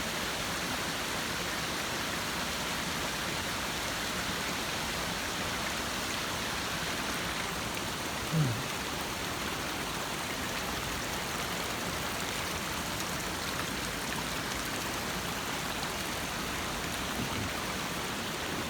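Steady rush of a mountain waterfall cascading over rock, close by, mixed with falling rain. A brief short voice sound breaks in about halfway through.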